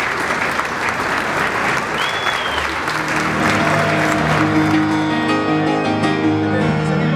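Crowd applauding, with one short whistle about two seconds in. About three seconds in, grand piano music begins, rock-jazz in style, and it takes over as the applause fades away.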